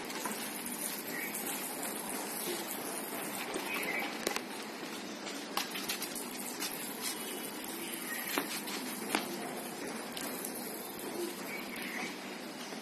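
Water pouring and pattering from a plastic watering can onto concrete, with a few light clicks and faint short chirps.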